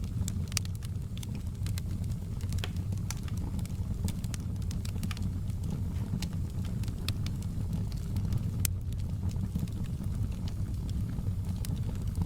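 Wood fire crackling, with frequent sharp pops and snaps over a steady low rumble of the flames.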